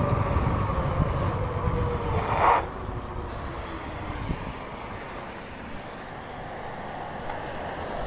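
Wind and riding noise from an electric fat-tire bike under way, with a faint whine sliding down in pitch. About two and a half seconds in there is a brief brighter burst, then the rush drops to a quieter, steady level.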